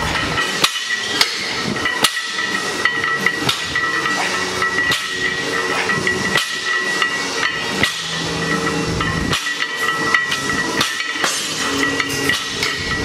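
Iron Olympic weight plates on a loaded barbell clanking repeatedly as deadlift reps are pulled and set down, the plates knocking against the floor and rattling on the bar sleeves. The clanks come irregularly, often less than a second apart, over a steady high-pitched whine.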